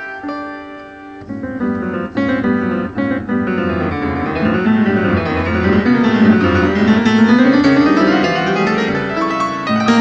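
Piano music: quiet at first, then from about a second in a dense passage of rapid notes sweeping up and down, growing louder.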